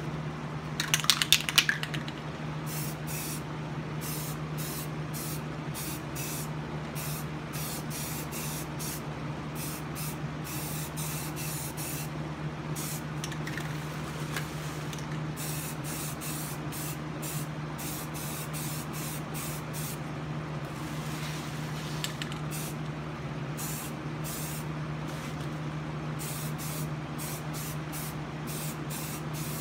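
Aerosol spray can spraying primer in many short bursts, a hiss that switches on and off again and again, after a brief loud rattle about a second in. A steady low hum runs underneath.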